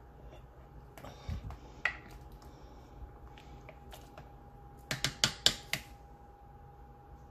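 A few light clicks, then a quick run of about five sharp clacks: a ladle knocking against the rim and sides of a crock pot as the bean soup is stirred and the ladle is lifted out.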